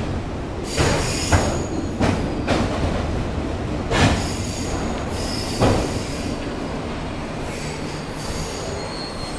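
Freight train of autorack cars rolling past on a curve, the steel wheels squealing in thin high tones that come and go. A handful of sharp clunks from the wheels and cars fall in the first six seconds.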